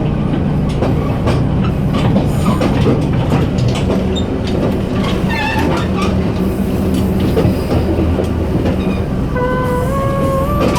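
Diesel multiple unit running, heard from the gangway between carriages: a steady diesel drone and rumble with frequent rattles and clicks over the track. There is a brief squealing tone about five seconds in and stepped rising tones near the end.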